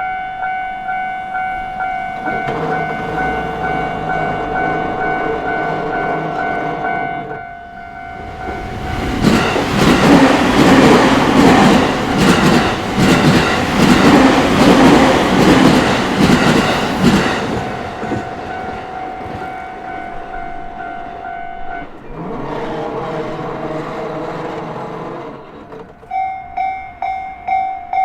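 Japanese level-crossing alarm ringing, about two strikes a second; it stops about 22 seconds in and starts ringing again near the end. A train passes loudly from about 9 to 17 seconds with clattering wheels over the rail joints. A lower steady tone sounds for a few seconds before and after the train.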